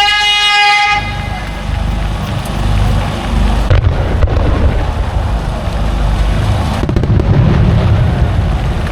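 Aerial fireworks shells booming: a low rolling rumble with several sharp reports, two close together near the middle and more near the end. A held musical tone cuts off about a second in.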